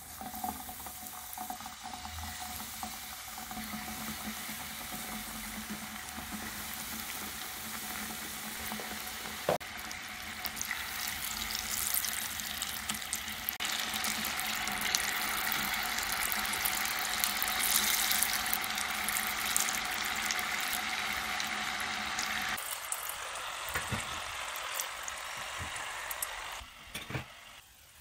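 Battered tofu deep-frying in a small pot of hot oil: a dense, steady sizzle and crackle of bubbling oil that grows louder partway through. Near the end it turns much softer, with a few light knocks.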